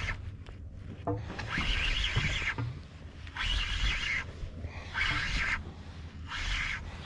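Spinning reel being cranked in four short rasping bursts, each under about a second, about a second and a half apart, as a hooked fish is wound up under load on a bent rod.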